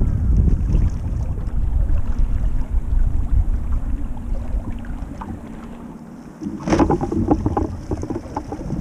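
Wind buffeting the microphone of a sailing kayak, with water washing along the hull. The wind eases through the middle, then a sudden louder burst of rustling and splashing comes about two-thirds of the way in, as the kayak sail swings across to the other side.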